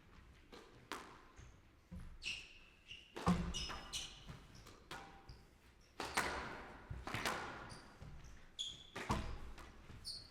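A squash rally: the ball is struck by rackets and smacks against the court walls roughly once a second, each hit echoing briefly, with short high squeaks of players' shoes on the court floor in between.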